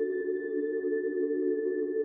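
Steady electronic drone: a cluster of low held tones with a thin high tone above, holding without change.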